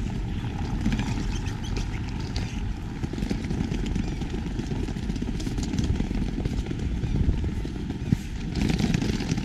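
City street ambience: a steady rumble of traffic with scattered short taps of footsteps on cobblestones.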